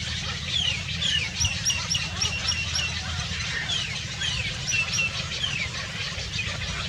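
Small birds chirping in quick down-slurred notes, with a run of repeated chirps at about four a second near the middle, over a steady low rumble.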